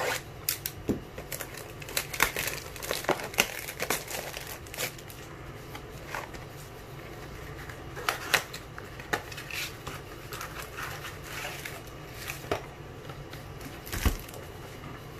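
Cellophane shrink wrap being torn and crumpled off a cardboard box of trading cards: irregular crinkling with sharper crackles at several points, and a soft thump near the end.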